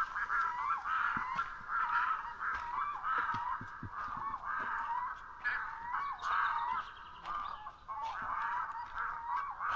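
A pair of waterbirds on the lake calling over and over, an unbroken racket of calls following one another a few times a second.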